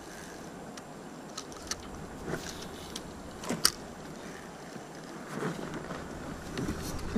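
Steady hiss of the river with scattered light knocks and clicks from a spinning rod and reel being handled in a canoe; the sharpest click comes about three and a half seconds in, with a few louder knocks near the end.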